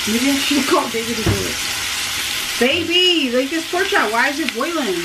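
Breaded pork chops sizzling as they fry in a hot frying pan: a steady, hissy crackle. Over it a person hums a tune near the start and again through the second half.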